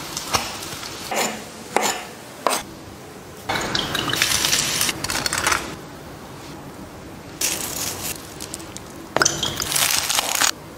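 Close-up kitchen food-prep sounds: metal tongs clicking against a frying pan as toast is turned, then a run of scraping and handling noises, and near the end a knife crunching through toasted bread.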